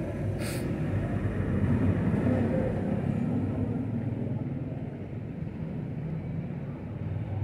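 Distant city road traffic: a steady low rumble of vehicles that eases somewhat after the middle, with a short hiss about half a second in.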